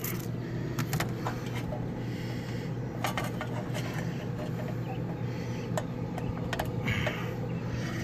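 Small clicks and taps of wires and spade connectors being handled at the terminals of an air conditioner's run capacitor, over a steady low hum.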